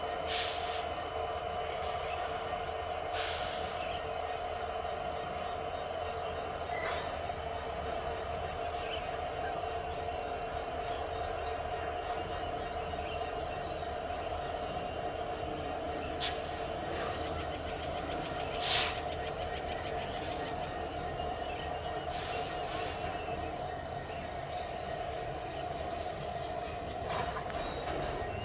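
Insects chirping in a steady, rhythmic trill over a low, steady rumble from a pair of diesel locomotives moving slowly. One sharp click about nineteen seconds in, and a fainter one a few seconds earlier.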